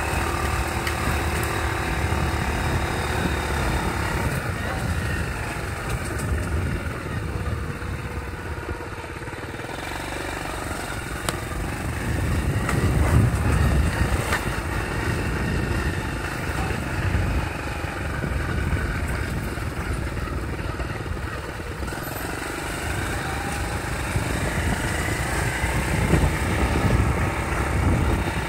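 Motorcycle engine running continuously while riding, its level rising and falling a little, loudest about halfway through and again near the end.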